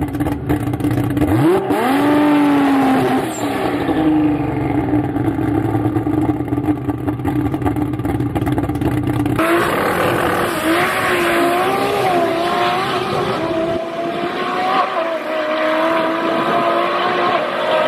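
Turbocharged Toyota Supra drag car's engine running loud near the start line, with a quick rev about two seconds in. About nine seconds in the sound changes abruptly to the car's pass down the strip, its engine note climbing and wavering.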